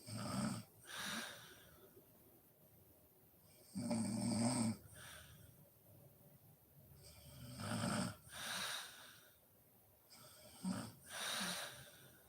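A sleeping woman snoring: three breaths about four seconds apart, each a rough, low snore on the in-breath followed by a breathy, hissing out-breath.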